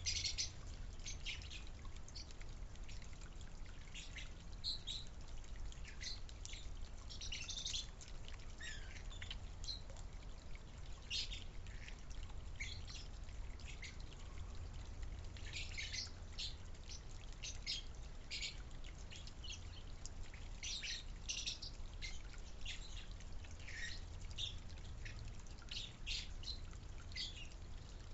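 Backyard birds chirping: many short, high calls, sometimes several a second, over a steady low hum.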